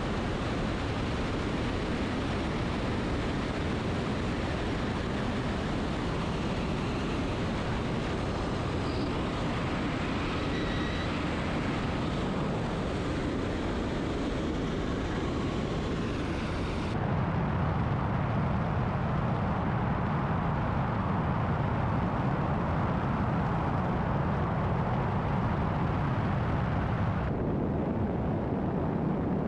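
Ultralight aircraft engine and propeller running steadily in flight, mixed with wind rushing over the wing-mounted camera. About halfway through the sound cuts abruptly to a louder, deeper engine and wind noise, and it shifts again near the end.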